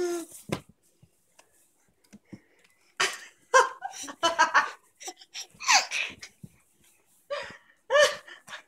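Baby laughing in short, high-pitched bursts, after a single soft knock about half a second in.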